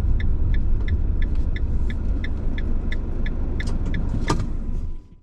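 Low road and engine rumble inside a Citroën van's cab, with a steady ticking like the turn indicator, a few ticks a second, and one louder click about four seconds in. The sound cuts off abruptly near the end.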